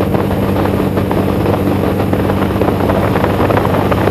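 Boeing Stearman biplane's radial engine and propeller droning steadily in cruising flight, heard from the open cockpit together with the rush of the slipstream.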